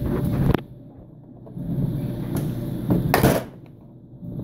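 Hard plastic drill bit case being handled on a hard surface: a low shuffling rub, then one sharp plastic clack about three seconds in.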